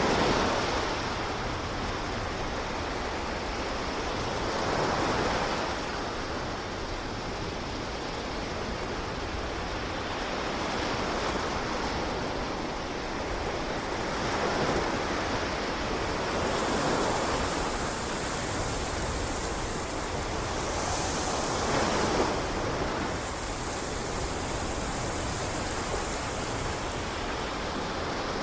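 Ocean surf washing in, swelling and easing every few seconds. A brighter hiss joins in over the second half.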